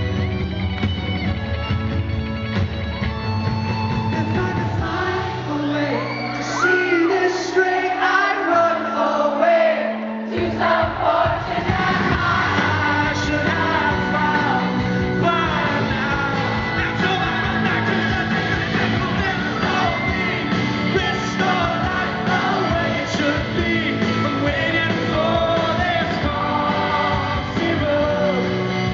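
Live rock band in a concert hall with a male lead vocal singing over it. The bass and low end drop out for a few seconds, then the full band comes back in about ten seconds in.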